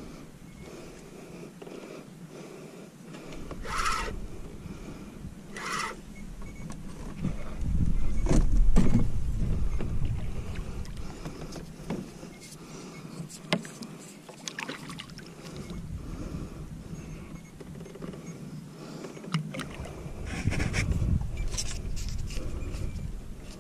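Water sloshing and lapping against a fishing kayak's hull, with two louder low surges, about eight seconds in and again near the end, and a few sharp knocks of gear on the boat.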